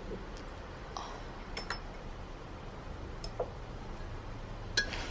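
Light clinks of dishes and cutlery at a table: a few scattered taps, each with a short ring, over a low steady hum.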